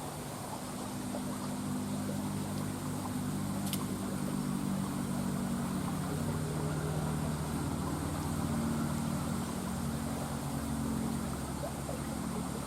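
A motor engine running steadily with a low hum, getting a little louder after the first second or two. A short click about four seconds in.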